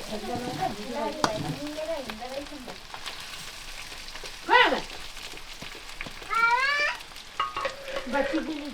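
Chicken frying in oil in a pan, sizzling steadily with stirring and scraping clicks. Faint voices sound in the first couple of seconds, and two short rising calls come about four and a half and six and a half seconds in.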